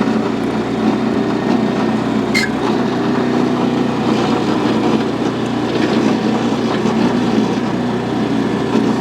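Towable backhoe's gas engine running steadily under hydraulic load while the bucket digs into hard-packed dirt, with a short sharp clink about two seconds in.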